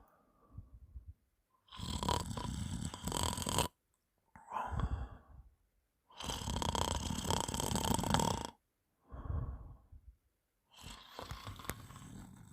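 A woman snoring in a phlegmy, slimy way: three long snores about four seconds apart, with a shorter, quieter breath between each. The snorer puts the wet sound down to mucus in her throat after drinking alcohol.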